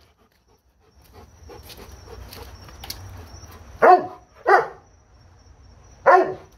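Doberman barking: two loud barks about half a second apart past the middle, and a third about a second and a half later, each falling in pitch. Before them comes a couple of seconds of low scuffling noise.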